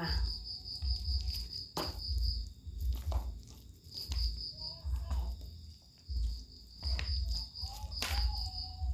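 Someone eating laksa noodle soup: chewing and a few sharp utensil clicks. A high-pitched chirping in rapid even pulses comes and goes in bursts of a second or two.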